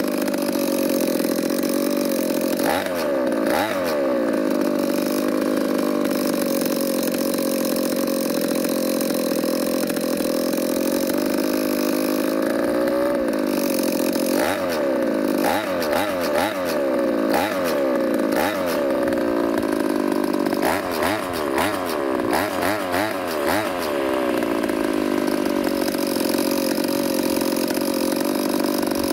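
Two-stroke brush cutter engine with an aftermarket expansion chamber and power filter, idling and being blipped with a motorcycle twist-grip throttle. It gives a few quick revs, then a rapid cluster of blips in the second half, and settles back to a steady idle near the end.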